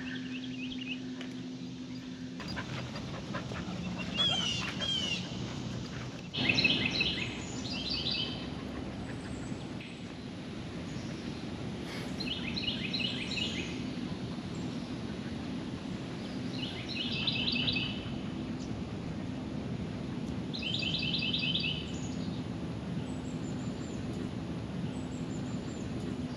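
A songbird repeats the same short phrase of rapid high notes about every four seconds, with another bird's brief rising chirps early on. Under it runs a steady outdoor background noise with a low hum.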